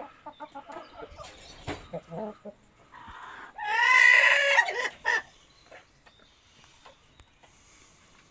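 Chickens clucking in short calls, then about three and a half seconds in a rooster crows once, loud and about a second and a half long. Faint clucking follows.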